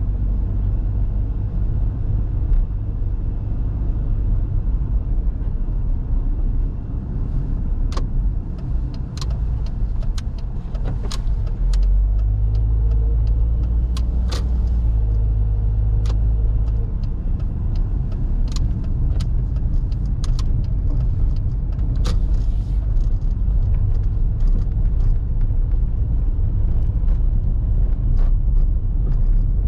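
A car on the move: a steady low rumble of engine and road, with scattered sharp clicks partway through.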